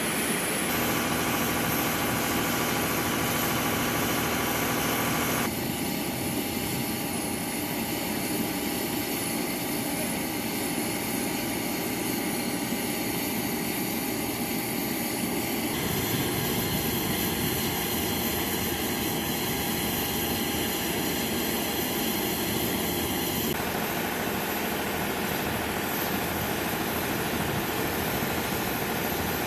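Steady mechanical drone of running airfield machinery, with high whining tones like a turbine engine's, during aircraft refuelling. Its tone shifts abruptly several times.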